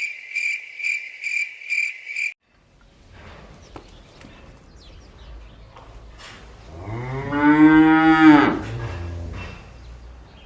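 A cow mooing once, a long call of about two seconds near the middle of the clip, over a faint steady background. Before it, a rapid string of about six short high electronic beeps plays in the first two seconds.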